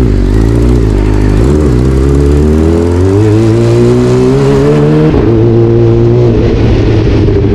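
Kawasaki ZX sport bike's inline-four engine accelerating hard while being ridden. Its pitch climbs, drops at an upshift about five seconds in, then pulls on steadily. Exhaust note not very aggressive, but strong pull.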